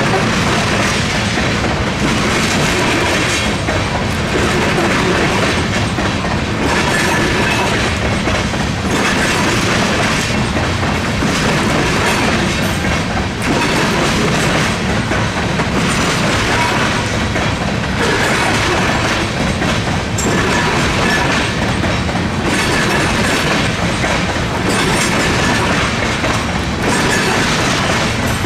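CSX freight train of tank cars rolling across a railroad diamond crossing: a loud, steady rumble of wheels on rail, with wheel clacks over the crossing repeating every second or two.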